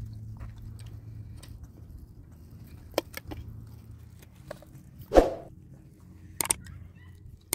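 Quiet outdoor-meal sounds: a few light clicks, as of dishes and food being handled, and one louder short knock about five seconds in, over a faint low rumble that fades early.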